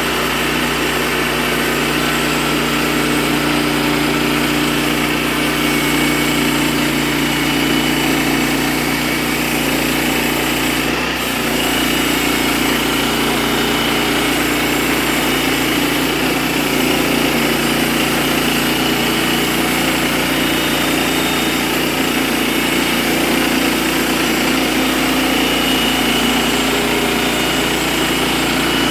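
Wood-Mizer portable band sawmill running steadily under engine power.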